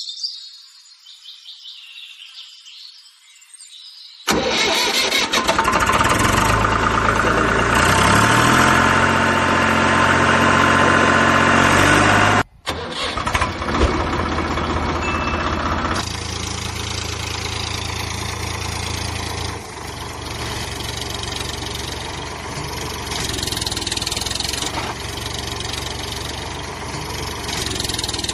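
Engine sound effect dubbed over the toy machinery: after about four quiet seconds an engine starts abruptly and runs loud, its pitch stepping down, cuts out for a moment about twelve seconds in, then runs on steadily.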